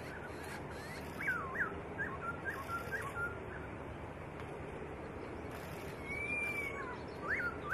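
Black-throated laughingthrush singing: a run of short, sharp whistled notes that swoop up and down, then one long clear whistle about six seconds in, followed by more quick notes near the end.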